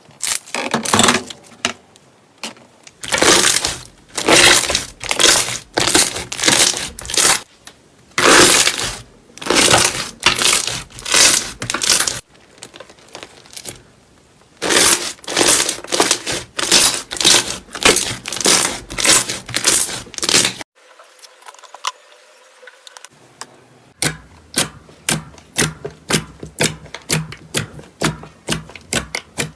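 Slime being squeezed and pressed by hand, crackling and popping in repeated squishes, a few a second, in two long runs; near the end comes a quicker run of sharp clicks and pops.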